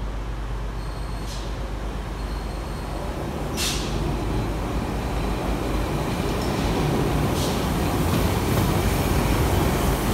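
Three-car set of British Rail Class 153 single-car diesel railcars arriving along the platform, its engine and wheel rumble growing louder as it nears and passes close. A few short sharp high sounds cut through, the loudest about four seconds in.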